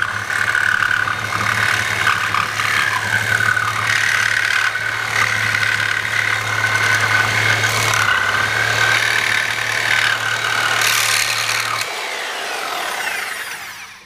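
Corded reciprocating saw with a Diablo carbide-strip blade cutting through a wooden beam studded with nails, its motor running steadily under load and cutting slowly. About twelve seconds in the trigger is released and the motor winds down to a stop.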